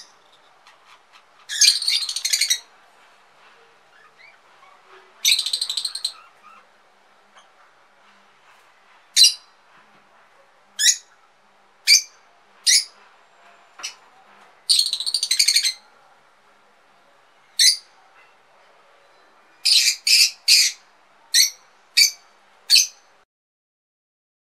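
Peach-faced lovebird calling: sharp, shrill squeaks, some single and some in chattering runs of about a second, with pauses between.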